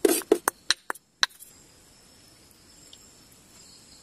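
Quick scraping strokes of a fork grating fresh coconut from its half shell, about five a second, ending about a second and a half in. After that, a faint steady chirring of crickets.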